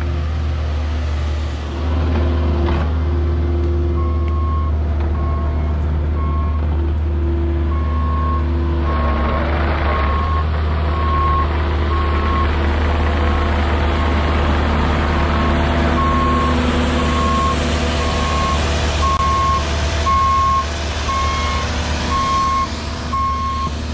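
Cat 306 mini excavator's diesel engine running steadily. From about four seconds in, a backup alarm beeps about once a second.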